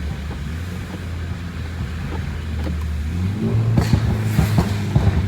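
BMW G20 330i's turbocharged four-cylinder engine running steadily at low revs while driving. The engine note rises a little about three and a half seconds in, with scattered short knocks and clicks.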